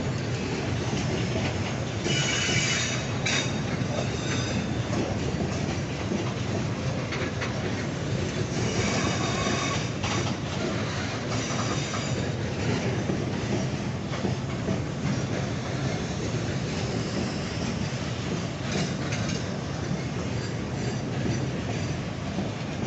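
Loaded freight wagons of a log train rolling past on curving track, with a steady rumble and rattle of wheels on rail. High-pitched wheel squeal rises out of it about two seconds in and again from about nine to twelve seconds.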